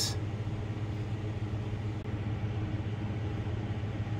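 Grow-tent fans running: a steady low hum with an even hiss above it.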